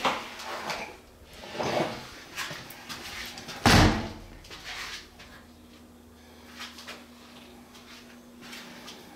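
A glass shower door is handled and shut: a softer knock about two seconds in, then a loud bang a little before halfway through.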